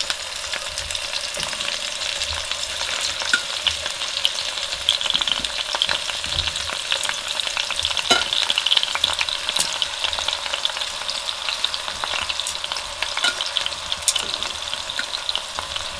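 Quartered tomatoes and onion frying in hot olive oil in a pan: a steady sizzle crackling with many small pops of spattering oil.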